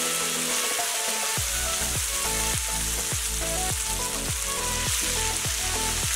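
Mixed vegetables sizzling in hot oil in a wok as they are stir-fried with a spatula, a steady frying hiss. Background music with a regular beat comes in about a second and a half in.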